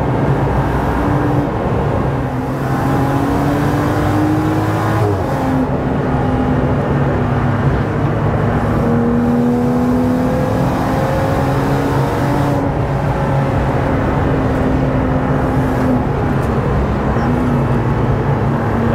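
In-cabin sound of a BMW M135i race car's swapped-in N55 turbocharged straight-six running hard on track, with road and tyre noise. The engine note climbs under acceleration and falls back several times as the driver lifts or changes gear.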